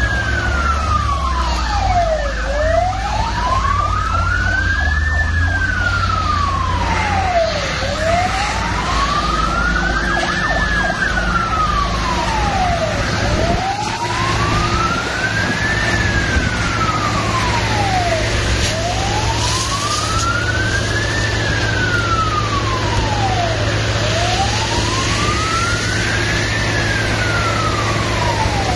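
Fire engine siren in a slow wail, its pitch rising and falling once about every five seconds, over a steady low engine rumble.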